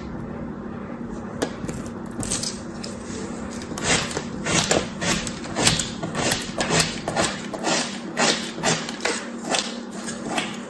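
A thin metal blade slicing through packed kinetic sand, first in soft scrapes, then from about four seconds in as a quick run of crisp, crunchy cuts, about three or four a second.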